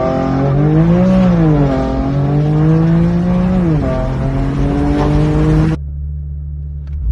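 BMW car engine revving: its pitch climbs about a second in and falls back, holds steady, then drops again. Near the end the sound cuts off abruptly to a quieter, steady low drone.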